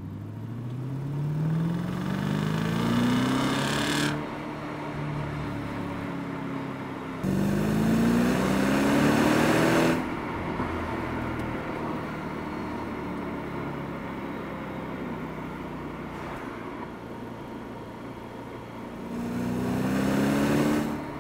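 Audi B6 S4's 4.2-litre V8 running under acceleration, its revs climbing in pitch through a pull in the first four seconds, louder again from about seven to ten seconds in, then cruising steadily before pulling up once more near the end.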